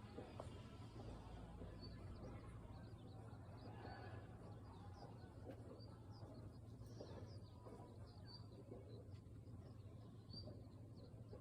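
Very quiet background: small birds chirping faintly and often, over a steady low hum.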